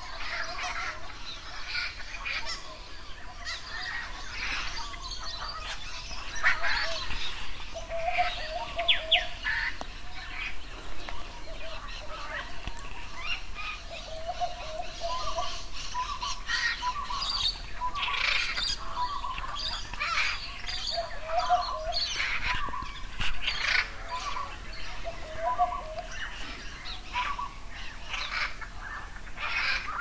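Small birds calling: a busy scatter of short chirps and twitters, with a lower short note repeated every few seconds.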